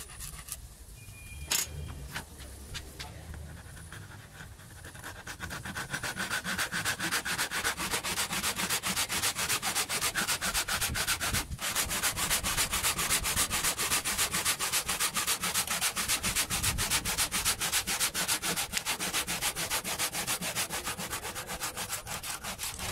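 A handsaw cutting through an MDF board in rapid, even back-and-forth strokes. The sawing starts about five seconds in, after a quieter stretch with a single sharp click.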